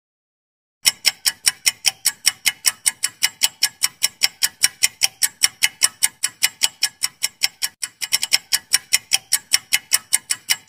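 Quiz countdown timer's clock-ticking sound effect: fast, even ticks, about five a second, starting about a second in and running while the timer counts.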